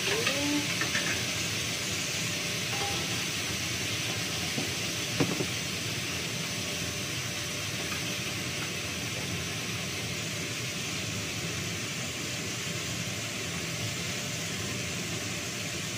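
Fish frying in hot oil, a steady hiss, half cooked. A single sharp knock of a utensil comes about five seconds in.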